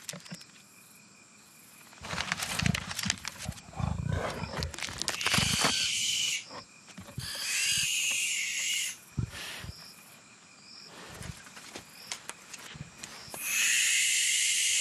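Young animals hidden in a tree hollow giving harsh, high hissing screeches in three long bursts, each lasting one to two seconds, with the last the loudest. Before the calls, a leopard knocks and scrapes against the wood of the trunk.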